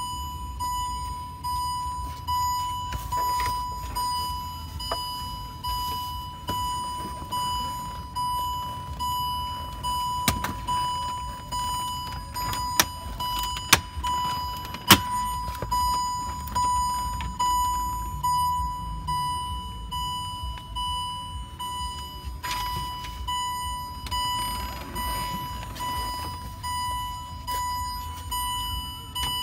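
Range Rover Sport's electronic warning chime repeating about once a second, each chime a single tone that fades out, with the ignition on. A few sharp clicks of plastic trim and tools are heard in the middle.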